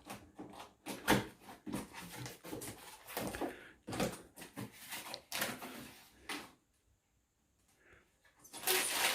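A gift package being opened and its contents handled: a run of short rustles and knocks for the first six seconds or so, then a pause, then a brief rustle near the end.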